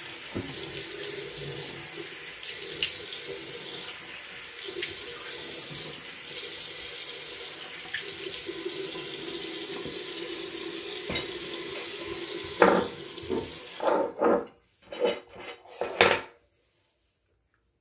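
Bathroom sink tap running steadily while water is splashed onto the face to rinse off a facial wash. A handful of loud splashes come near the end, then the water cuts off abruptly.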